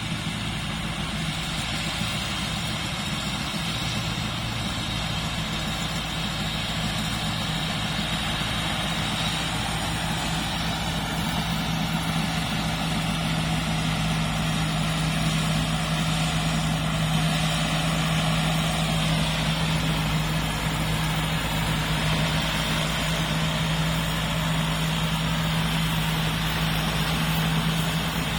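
Combine harvester's diesel engine running steadily with a constant low hum, getting slightly louder after about ten seconds.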